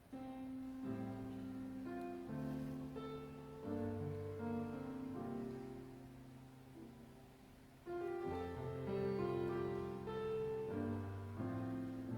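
Slow, gentle piano music: held chords changing every second or two, with a new phrase beginning about eight seconds in.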